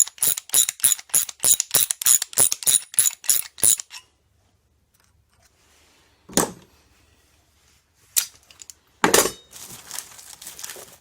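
Ratchet wrench clicking in quick, even strokes, about four clicks a second, as a nut is run down threaded rod; it stops about four seconds in. Later there is a single knock and, near the end, a short clatter of metal parts.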